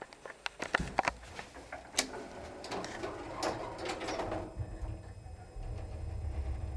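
Small electric passenger lift (320 kg, 1 m/s): a string of clicks and clattering knocks for about four seconds, then the car gets under way with a steady low motor hum.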